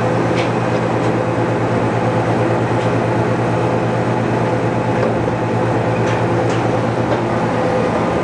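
Doosan NHP 5000 horizontal machining center's pumps and motors running: a steady hum with a constant mid-pitched tone and a few faint ticks.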